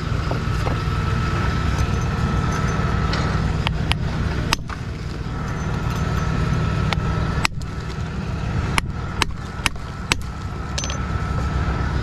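Hammer striking a building stone to dress it to shape: sharp, irregular strikes a second or so apart, clustered in the second half. An engine runs steadily underneath.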